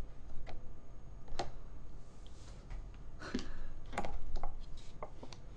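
Scattered light clicks and taps as the paper lid and cardboard bowl of a Nongshim Jjawang Spicy cup noodle are handled, with a small cluster of them past the middle.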